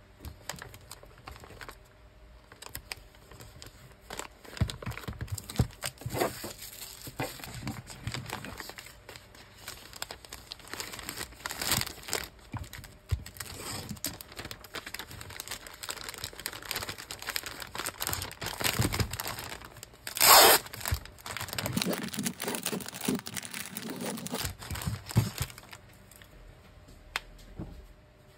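Clear plastic packing bag and paper wrapping crinkling and rustling as a wrapped item is handled and slid into the bag. About twenty seconds in comes one short, loud rip, the loudest sound here.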